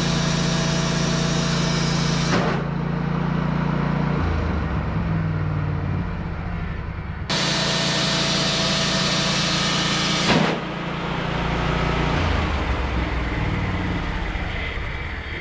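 Portable band sawmill running: a steady engine hum with the band blade cutting through a log, heard as a bright hiss in two stretches that each end abruptly. The engine note drops and rises between the cuts.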